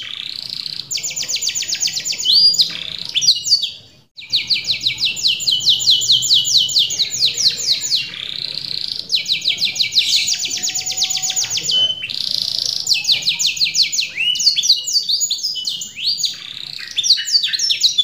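Domestic canary singing: long, fast trills of evenly repeated high notes, about ten a second, broken by short pauses and changes of phrase, with a brief break about four seconds in.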